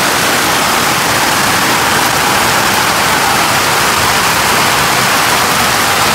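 Hail and heavy rain falling hard onto paving and ground: a loud, dense, unbroken hiss with no let-up.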